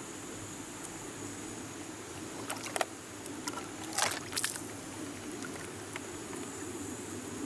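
Steady outdoor background hiss, with a few short crunching scrapes of footsteps on a gravel path about two and a half and four seconds in.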